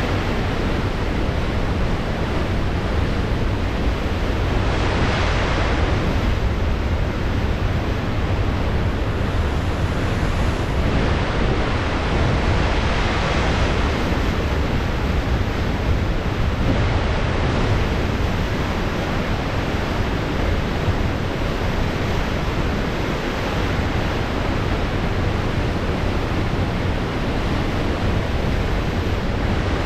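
Pacific Ocean surf: a steady wash of waves, with the hiss swelling louder every several seconds as waves break. A constant low rumble of wind on the microphone runs underneath.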